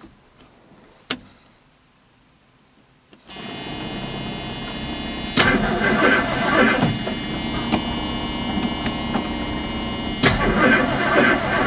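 A single click, then about three seconds in the Ford Ranger's engine starts on a cold start and runs on with a steady hum and rattle, with some rougher, louder stretches.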